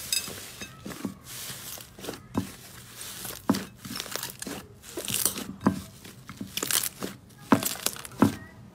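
Pink fluffy slime squeezed and kneaded by hand, making wet crackling with irregular sharp pops as trapped air bursts out.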